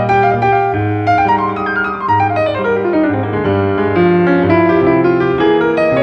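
Background piano music: a flowing melody over sustained low notes, with a falling run of notes through the middle.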